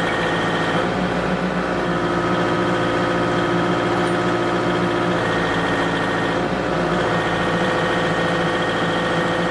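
Forklift engine running steadily while its hydraulics drive the single/double pallet handler's forks apart. The running note changes about a second in, a steady higher tone is held from about two to five seconds, and the note shifts again near seven seconds.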